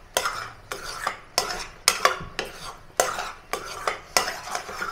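A utensil stirring thick semolina dough in a kadhai, knocking and scraping against the pan at a steady rhythm of about two to three strokes a second.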